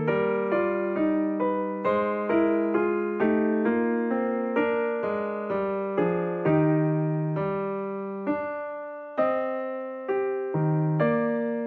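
Background piano music: a gentle melody of single struck notes, roughly two a second, each ringing and fading.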